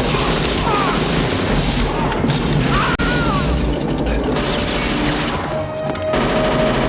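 Film action-scene soundtrack: dense crashing and booming effects mixed with musical score, with a few short screeching glides in the first half. Held music notes come through near the end.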